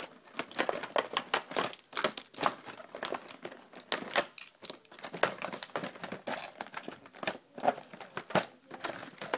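Crinkly packaging being crumpled and pulled open by hand to get at a pack of small play beads, a dense run of irregular crackles throughout.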